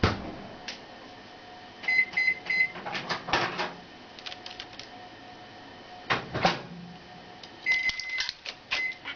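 Beeping like a microwave oven: three short beeps about two seconds in and a longer beep near the end, with clicks and sharp squawk-like calls in between.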